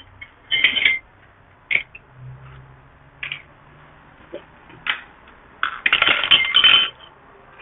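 Metal hand tools clinking and clattering in a series of short, sharp metallic clinks, with a denser jangle of clinks about six seconds in.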